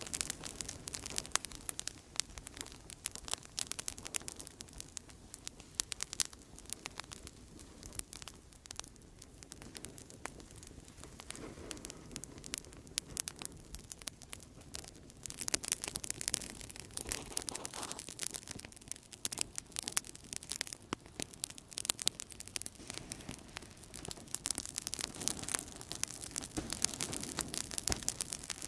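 Outdoor campfire crackling steadily, with many quick irregular pops and snaps over a soft hiss of burning.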